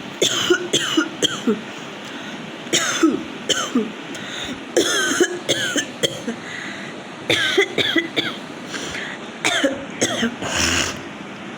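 A woman coughing deliberately and repeatedly, in a series of short fits of a few coughs each, with brief pauses between them.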